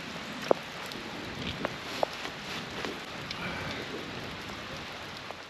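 Steady rain falling, an even hiss with a few sharper drop ticks, the loudest about half a second in.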